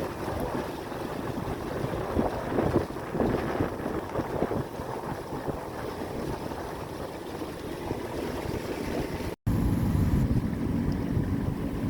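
Wind buffeting the microphone over water splashing and rushing past a sailboat under way. A sudden cut about nine seconds in, then a louder, steadier low rumble.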